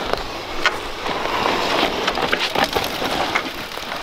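Mountain bike tyres skidding and rolling through loose dirt and dry pine needles, with twigs crackling and snapping under the wheels.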